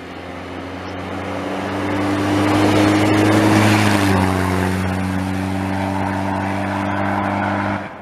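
GAZ rally-raid pickup approaching at speed on a snowy road, its engine growing louder and then dropping in pitch as it passes close by, with rushing tyre noise on the snow. The sound cuts off suddenly near the end.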